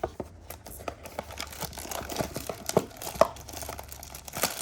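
Plastic shrink wrap being torn and crumpled off a trading-card blaster box: a dense run of irregular crinkling crackles, with the sharpest snaps a little under three seconds in and again about a second later.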